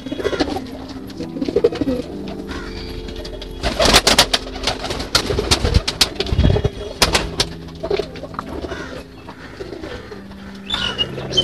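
Domestic pigeons cooing in a loft, with a flurry of wing flaps and clatter from about four to seven seconds in.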